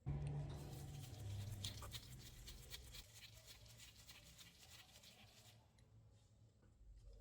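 Rapid scratching strokes of hand work on a part, with a low hum underneath, starting abruptly and stopping about five and a half seconds in.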